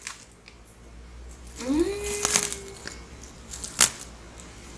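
A plastic snack bag being torn open and crinkled by hand, with one sharp snap near the end. A brief rising vocal hum is heard about two seconds in.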